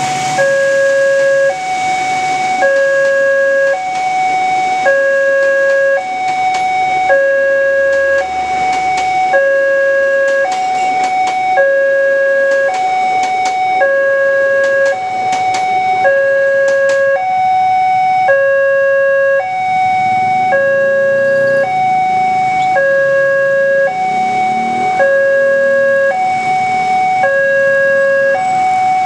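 Railway level-crossing warning siren sounding a steady two-tone alarm, high and low notes alternating about once a second. A run of sharp clacks sounds under it in the first half.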